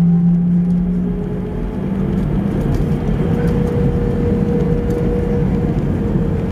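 Airbus A321's jet engines running near idle while taxiing, heard inside the cabin as a steady hum over a low rumble. The hum dips slightly and shifts in pitch about a second and a half in.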